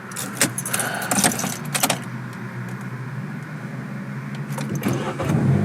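Clicks and a key jangle at the ignition, then the Opel Corsa's petrol engine starts and settles into a steady idle, growing a little louder near the end. It fires only once the brake pedal is held down, after the Easytronic gearbox's blinking N had stopped it from starting.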